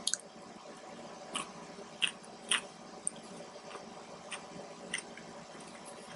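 Close-miked eating sounds: chewing with wet mouth clicks and smacks, short and irregular, one or two a second, over a faint steady background hiss.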